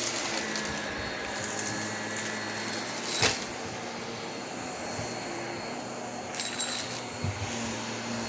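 Vacuum cleaner running steadily with a low hum, with one sharp click about three seconds in and a few light crackles a little past the middle.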